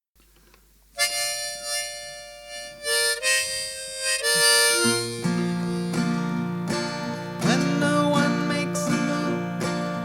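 Instrumental song intro: a harmonica starts playing held chords about a second in, and an acoustic guitar joins about halfway through. After that the harmonica bends its notes up and down over the guitar.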